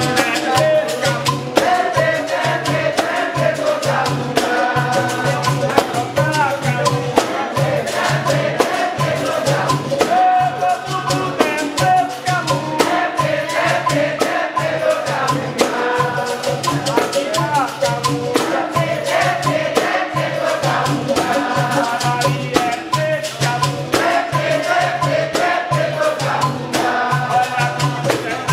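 Capoeira Angola roda music: berimbaus with caxixi shakers, a pandeiro and an atabaque drum keeping a steady beat, with a group of voices singing over it.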